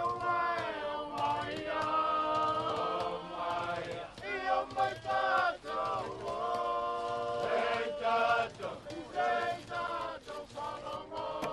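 A group of voices singing together in harmony, unaccompanied, in held and gliding phrases.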